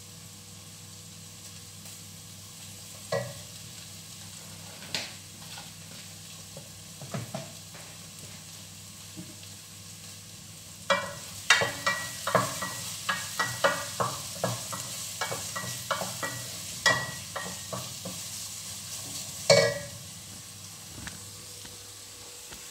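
Carrot and red chili strips frying quietly in oil in a metal pot while a wooden spatula stirs them, knocking and scraping against the pot. A few scattered knocks come early, then a quick run of stirring strokes from about halfway until near the end.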